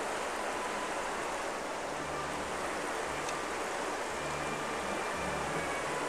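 Shallow river flowing over a pebble bed: a steady rush of running water.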